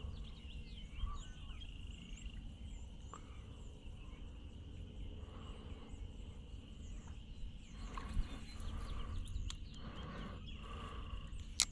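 Small birds chirping over a steady low rumble of outdoor background noise, with a few sharp clicks, the loudest near the end.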